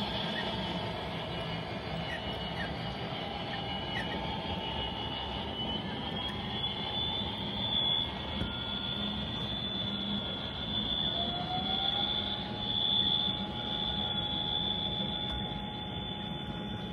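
A consist of HO scale model diesel locomotives running past on the track: steady high-pitched electric motor whine and wheel noise, with a few faint clicks. About eleven seconds in, a second whine rises in pitch and then holds.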